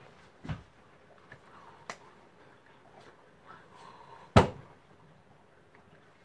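A few hand slaps and knocks: a soft thump about half a second in, a sharp click near two seconds, and a louder thump just after four seconds.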